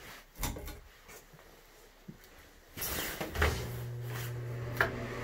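A few switch clicks and knocks, then about three seconds in a bathroom exhaust fan starts and runs as a steady whirr with a low hum, switched on along with the bathroom light.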